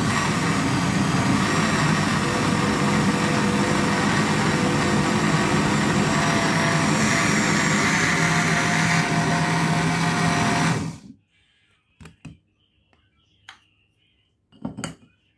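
Countertop blender with a glass jug running steadily at full speed, blending a thick milky spaghetti mixture, then switched off and stopping suddenly about eleven seconds in. A few light knocks follow as the lid is taken off the jug.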